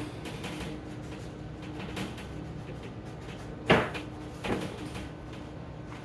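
Kitchen oven door and baking pan knocking: one loud thump a little over halfway through, then a lighter knock under a second later, over a faint steady hum, as the tray of pumpkin seeds goes back into the oven.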